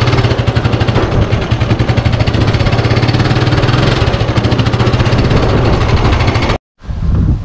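Motorcycle engine running steadily with a fast, even pulse while riding. It cuts out abruptly near the end, then comes back briefly.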